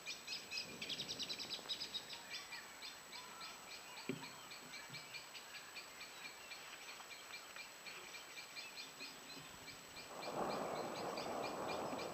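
A high, rapid chirping repeating about four times a second, the steady night chorus of insects. About four seconds in there is a single sharp knock, and about ten seconds in a rushing noise starts and becomes the loudest sound.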